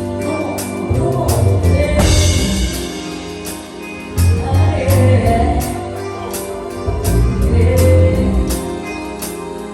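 Live band playing, with bass, percussion keeping a steady beat, and a singer's voice.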